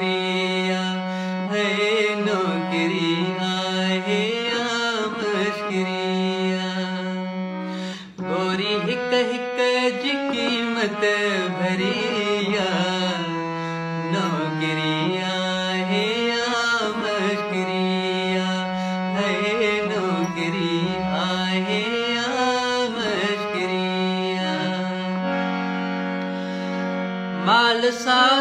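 A man singing a slow Sindhi song in long, wavering, drawn-out notes over a steady low drone, with a brief breath-like break about eight seconds in.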